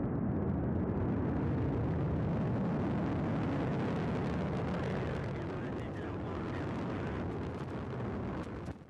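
Soyuz rocket's four strap-on boosters and core-stage engine running at full thrust during the climb just after liftoff: a steady, deep rumble that eases slightly partway through, with a few sharp crackles near the end.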